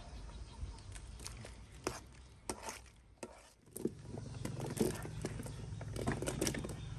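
Scattered light clicks and knocks as hed phao (earthstar) mushrooms are handled in a metal tray, over a low steady hum that grows stronger about halfway through.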